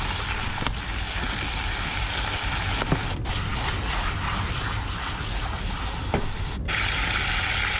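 Fish frying in hot oil in a small pan, a steady sizzle over a low hum. The sizzle breaks off for an instant twice and is stronger after the second break.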